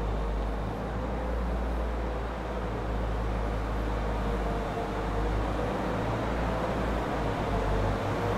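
DMG Mori DMF 260-11 five-axis CNC mill running a program behind its closed doors: a steady machine noise with a low hum and a faint steady tone.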